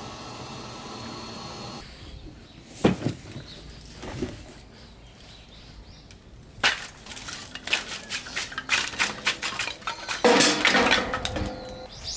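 Knocks and clatter of hard objects being handled: a few separate knocks, then a quicker run of clicks and clatter that thickens near the end. A steady hum cuts off about two seconds in.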